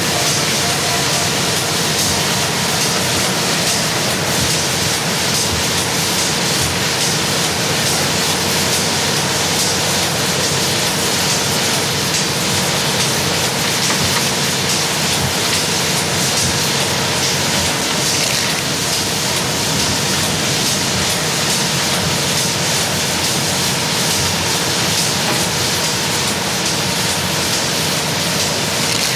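Steady machinery noise of a coal-loading plant, with conveyor belts running and the hiss of a water hose spraying the coal, over a steady hum.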